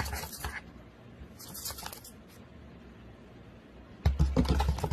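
Cat's paw clawing and batting at a cardboard box: short scratchy rustles, then a louder rapid flurry of scratches and thumps near the end.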